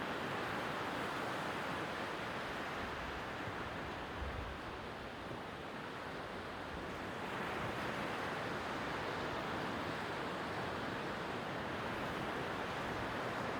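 Sea waves washing steadily on the shore, easing off a little in the middle.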